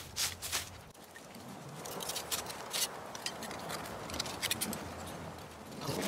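Dry fallen leaves rustling and crackling under a hand clearing the forest floor, a quick flurry of crackles first and then softer rustling with scattered light taps.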